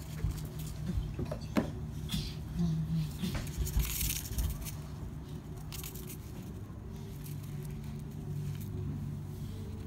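Irregular scratching and rustling of hamsters digging and shuffling in bath sand, busiest in the first half, over a steady low hum.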